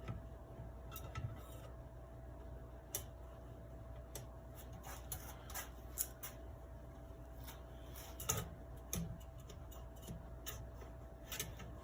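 Scattered light clicks and taps of small metal parts as the shot tube and barrel assembly of a Daisy 105 Buck BB gun is worked into the gun and guided through the loading gate, over a faint steady hum.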